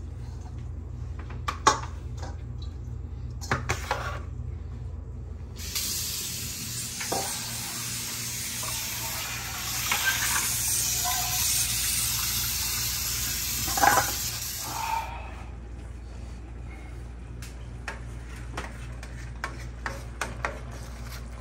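Kitchen faucet running into the sink for about nine seconds in the middle, as blanched tomatoes are rinsed under it. A few knocks and clinks of a bowl and dishes come before and after the water.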